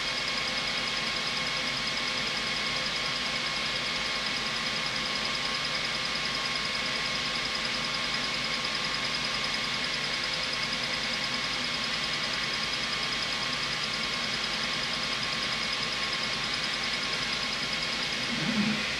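xTool S1 20 W diode laser engraver running during an engrave on its rotary, giving a steady whir with several constant tones. There is a brief louder sound near the end.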